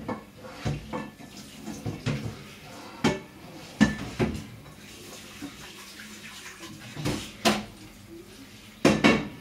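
Dishes being washed up at a kitchen sink: scattered clinks and knocks of crockery and utensils against each other and the sink, with the loudest pair near the end, over running tap water.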